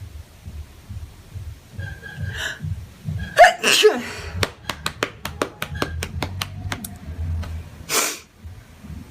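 A young woman sneezes once, sharp and loud, about three and a half seconds in. A quick run of sharp clicks follows, then a short hissing burst near the end.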